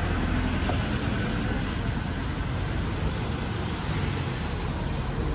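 Steady road traffic noise from cars passing along a city street, a constant low rumble without distinct events.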